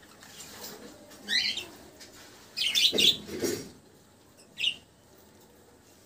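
Budgerigars chirping: a few short, sweeping chirps, one about a second in, a loud cluster around the middle and another near the end.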